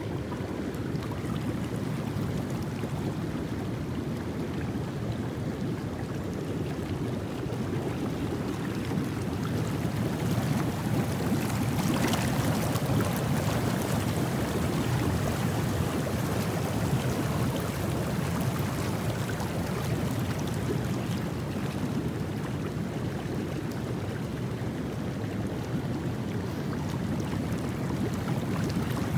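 Steady rush of outdoor swimming-pool water with a low rumble underneath. A hissing, bubbling stretch from jacuzzi jets stands out in the middle.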